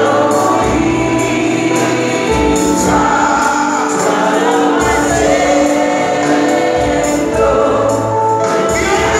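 Live gospel song: a lead singer and a group of backing singers singing together over a band of keyboard, drums and bass.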